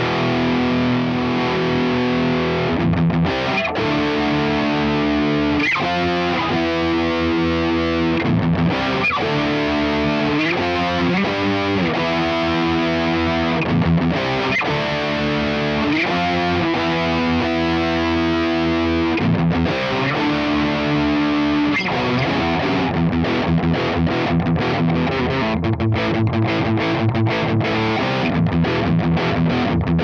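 Ibanez J-Custom RG8570 electric guitar with DiMarzio humbuckers, played through a Diezel VH4 tube head into a Mesa Boogie 4x12 cabinet with Celestion Vintage 30 speakers, with a distorted tone. Sustained melodic notes with bends, then a faster picked passage in the last third.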